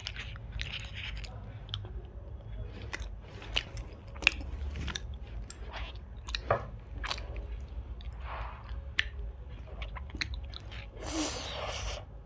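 Close-miked chewing of soft Indian milk sweets, with many short wet mouth clicks and smacks.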